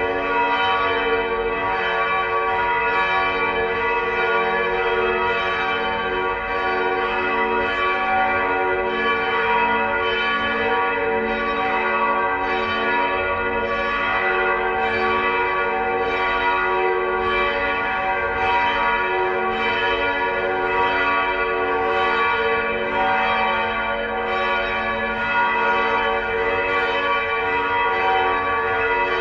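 Church bells of the Felsenkirche pealing: repeated strokes at several pitches overlap into one continuous ringing wash.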